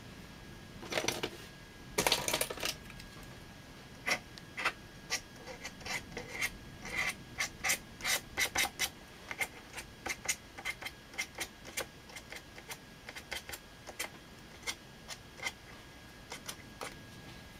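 A fine brush scratching across watercolour paper: two longer rubs near the start, then many short quick strokes, about two a second, thinning out near the end.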